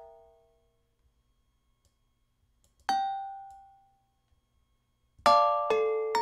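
Software bell instrument (an acoustic-sounding Omnisphere bell preset) playing melody notes. A note fades out at the start, a single bell note sounds about three seconds in and rings away, then chords strike again about five seconds in.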